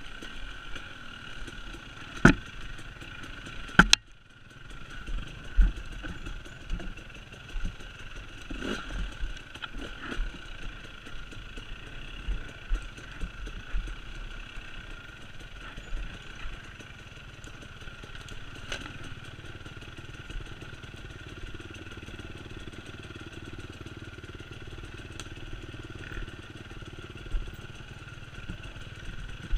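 Enduro dirt bike engine running steadily while riding down a steep, rough woodland trail, with the bike clattering and knocking over roots and ruts. Two sharp knocks about two and four seconds in are the loudest sounds.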